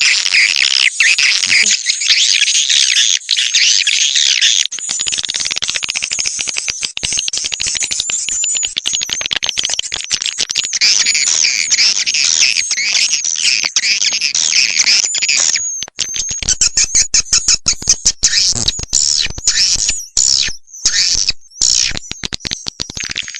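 Swiftlet call recording used to lure swiftlets to a nesting house: a dense, fast twittering of many high chirps. In the second half it turns choppy, with frequent short breaks.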